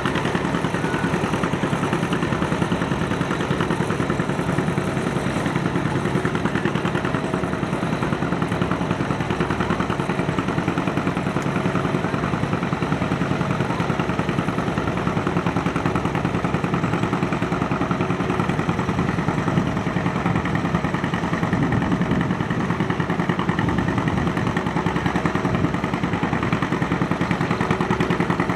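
Antique farm tractor engine running steadily at an even speed.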